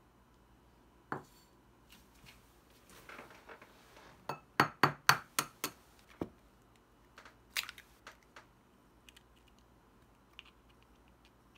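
A small porcelain dish set down and a raw egg tapped and cracked open over it: a quick run of sharp clinks and taps in the middle, then fainter ticks as the shell is pulled apart to separate the yolk.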